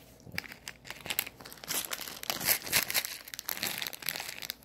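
Plastic jelly bean bag crinkling and rustling as a hand rummages in it for a bean: a dense run of crackles, loudest in the middle.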